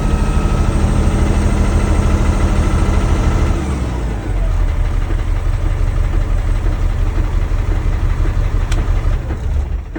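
Caterpillar 3126 inline-six diesel idling unevenly on a cylinder 1 misfire, freshly started after a new high-pressure oil pump and resealed injectors. About three and a half seconds in, the even running gives way to a rougher, noisier sound, which fades away right at the end.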